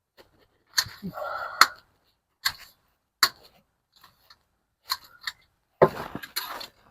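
Irregular clicks and knocks of an oil filter wrench being worked onto and around a truck's oil filter to loosen it, with a short scrape about a second in and a cluster of knocks near the end.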